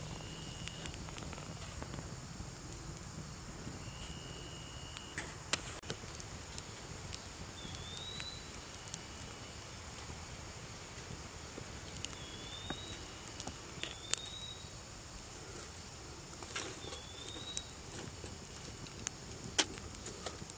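Twigs burning in a stainless steel twig stove, crackling with sharp, irregular pops. A bird gives short rising chirps every few seconds, along with a few short steady whistles.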